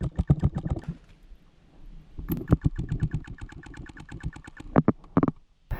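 Paintball markers firing rapidly, several shots a second: a short string, a pause of about a second, then a longer string, with a few louder, closer shots near the end.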